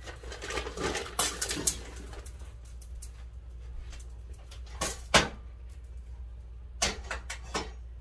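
Kitchen handling noises at a sink: a rustle with sharp clicks in the first two seconds, then a few separate knocks and clatters around five seconds and again around seven seconds.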